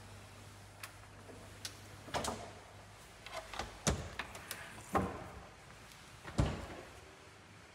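Knocks and thuds of built-in Miele fridge and freezer doors being handled and shut, a scatter of light clicks followed by three heavier thuds about four, five and six and a half seconds in.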